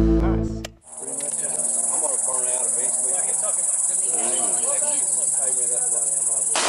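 Music cuts off about a second in, followed by a steady high-pitched drone of insects, with faint voices underneath.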